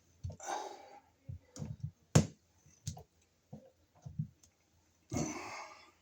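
Plastic wire nut being twisted by hand onto three solid copper wires, giving irregular clicks and short scrapes. The sharpest click comes about 2 seconds in, and a longer scrape about 5 seconds in.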